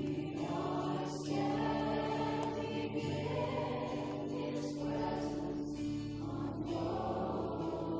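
Worship song: voices singing together in held notes over a sustained instrumental backing.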